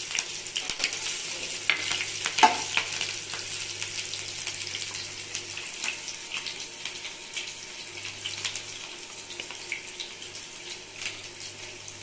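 Chopped green chillies and cumin seeds sizzling and crackling in hot oil, with many small pops that ease off slowly.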